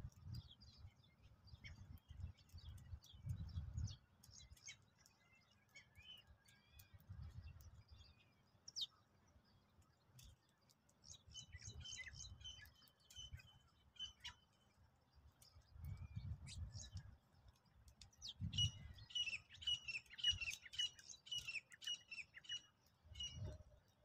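House sparrows chirping, with two busy runs of quick repeated chirps, one around the middle and one in the last few seconds. Low rumbling comes and goes underneath.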